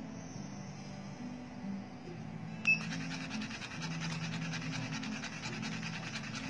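Background music with a low melody stepping from note to note, and a short sharp click with a brief high beep about two and a half seconds in.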